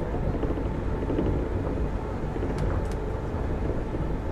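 Automated rubber-tyred metro train running, a steady rumble of tyres and drive, with two faint clicks a little past halfway.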